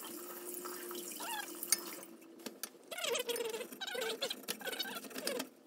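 A short snippet of a song: a voice holds one long note for about two seconds, then sings a short sliding melody, with a few sharp clicks in between.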